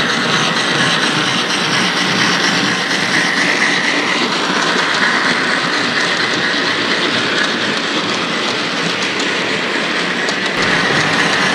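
Model railway train running past on the layout's track, a steam locomotive hauling tank wagons: a steady rolling clatter of wheels on rail with a whine that drifts up and down in pitch.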